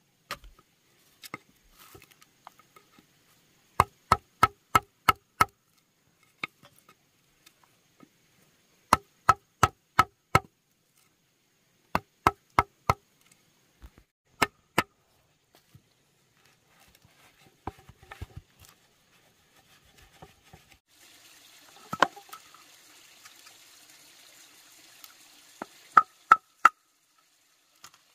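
Bursts of sharp chops from a knife on a wooden chopping board, four to six quick strokes at a time, about four a second. From about twenty seconds in, a steady hiss runs under the last few strokes.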